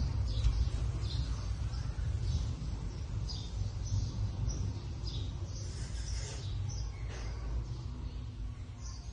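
Small birds chirping in the background, many short high chirps scattered throughout, over a steady low rumble.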